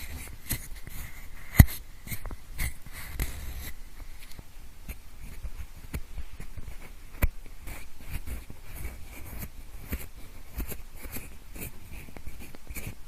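Pencil scratching and rubbing in quick short strokes, recorded close up in the style of ear-cleaning ASMR, with a sharp tap about a second and a half in and another about seven seconds in.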